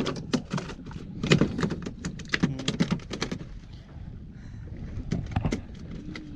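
Rapid, irregular clicks and knocks, dense for about the first three seconds and then thinning out over a faint low background.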